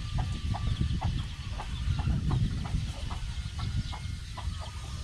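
Backyard chickens clucking, short separate clucks at about two or three a second, over a low rumble.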